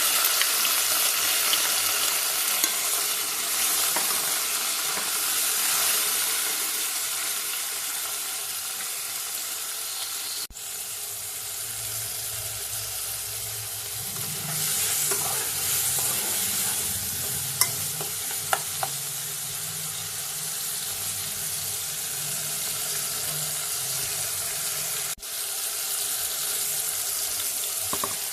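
Food frying in a pan with a steady sizzle, and a few sharp clicks of a utensil against the pan midway.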